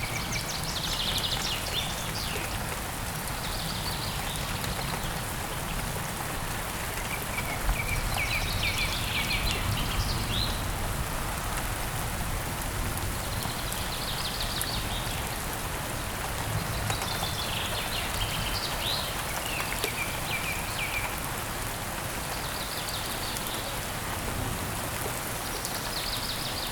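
Steady rain falling, with a bird singing short chirping phrases every few seconds over it.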